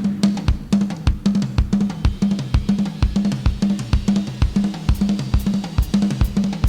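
Music with a drum kit: a steady bass-drum beat about twice a second with snare and cymbal hits, over a repeating low bass note.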